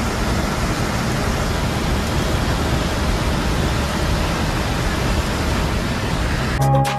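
Steady rushing noise inside a moving bus on a wet highway in a storm: engine, tyres and rain together. Background music with a beat comes in near the end.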